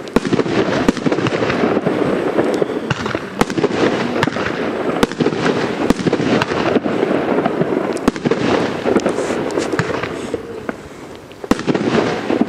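Two Blackboxx 'Arena' 2-inch category F4 shell batteries firing together, a dense run of launches and bursting shells with many sharp bangs. The barrage eases off for a moment shortly after ten seconds in, then a loud bang near the end starts it again.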